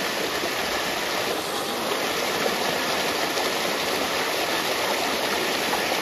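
Stream water rushing over rock slabs in a small cascade: a steady rush of water.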